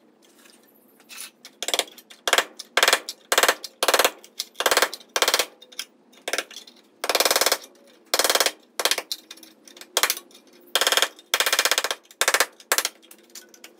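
Pneumatic air hammer with a long chisel bit, fired in about seventeen short bursts against sheet steel. It is chiselling a rusty rocker (sill) section free where it is spot-welded underneath.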